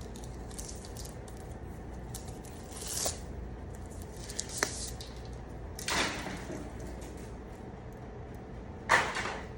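Wire stripper machine and cable being handled: four short scraping, squishing bursts, the last the loudest, with small clicks between, as the wire is worked into the stripper.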